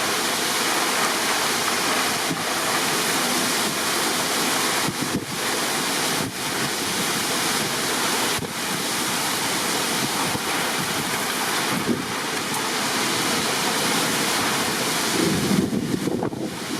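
Heavy wind-driven rain pouring down in strong gusts, a dense steady roar with wind buffeting the microphone, the rumble swelling near the end.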